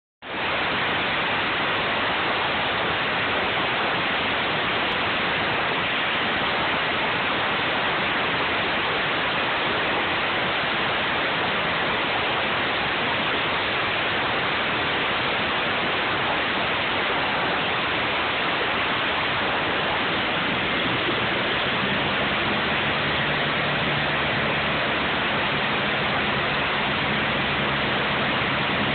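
Medical helicopter idling on the helipad with its turbine engines and main rotor running: a steady rushing noise with a faint high whine, joined about twenty seconds in by a low hum.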